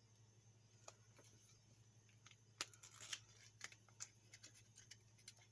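Near silence with a low steady hum, broken by a few faint clicks and rustles of small objects being handled, the sharpest about two and a half seconds in.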